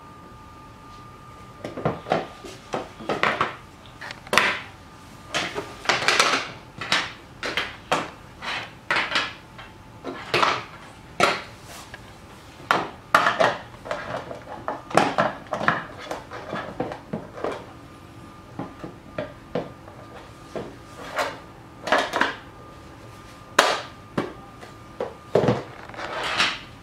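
Hard plastic parts of a vegetable slicer and grater set being handled and knocked against a wooden tabletop: a long run of irregular clicks and knocks, starting about two seconds in.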